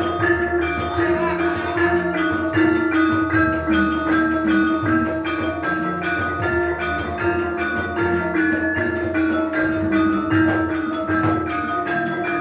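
Javanese gamelan ensemble playing. Bronze bonang kettle gongs and saron metallophones are struck with mallets in a quick, even stream of notes over long ringing tones.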